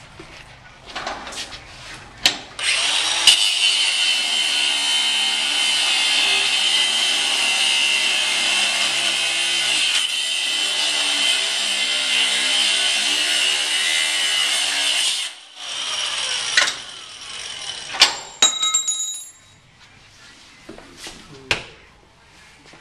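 Handheld power grinder with an abrasive cut-off wheel cutting through a steel padlock shackle: a steady high-pitched whine that starts about two and a half seconds in, runs for about thirteen seconds and cuts off sharply. A few metal clicks and clanks follow as the cut lock comes apart.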